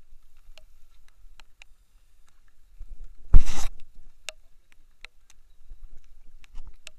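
Scattered sharp taps, like raindrops striking the camera housing, with one short, loud rustling knock about three and a half seconds in as the camera is jostled.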